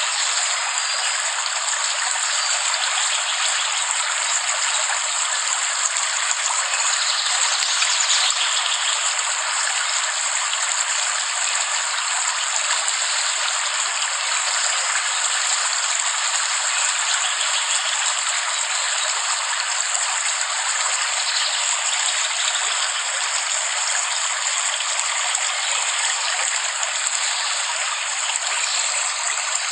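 Steady heavy rain: an even, unbroken hiss with no deep rumble and no thunder.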